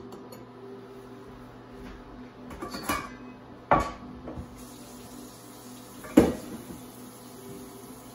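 Stainless steel pot and lid clanking at a kitchen sink: a short rattle, then two sharp metal clanks a couple of seconds apart, the second the loudest. A faint steady hiss comes in about halfway through.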